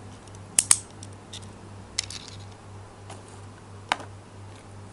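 Sharp clicks and taps of a small die-cast Tomica toy car being handled on a table: a quick double click about half a second in, a small cluster around two seconds, and a single sharp click near four seconds, over a steady low hum.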